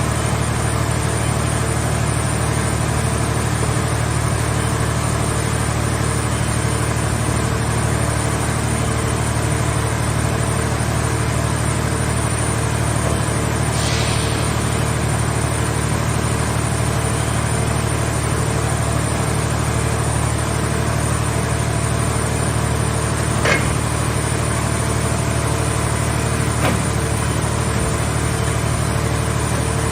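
Car scrap baler's power unit running steadily with a constant low hum, with a brief hiss partway through and two sharp clicks later on.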